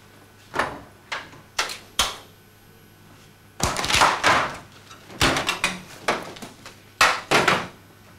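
Sheet-metal locker doors being opened and shut: sharp latch clicks and metallic bangs and rattles. There are single knocks in the first two seconds, then three clusters of them.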